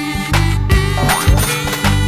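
Cartoon background music with a steady beat and sustained melody notes.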